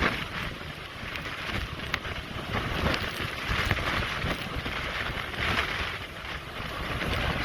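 Strong typhoon wind gusting and buffeting the microphone, a rushing hiss that swells and eases every second or two with uneven low rumble.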